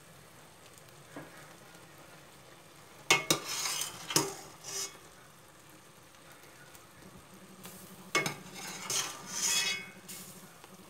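Metal mesh strainer and steel pot knocking together in sharp clanks, a few about three to four seconds in and another about eight seconds in, with short hissing bursts of draining water. The strainer holds freshly boiled tapioca pearls.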